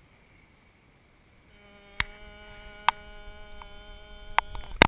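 A steady buzzing hum comes in about a second and a half in, with about five sharp knocks over it.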